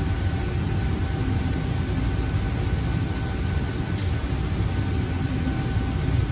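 Steady low rumble of a commercial kitchen exhaust hood's extraction fan running, with a faint steady whine over it.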